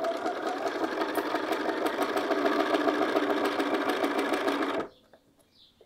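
Bernina sewing machine running steadily as it stitches up the side of a fabric pocket, then stopping near the end.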